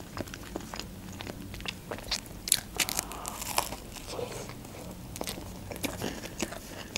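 Eating a club sandwich on toasted bread: a crunching bite into the toast near the middle, amid steady wet chewing with scattered small clicks.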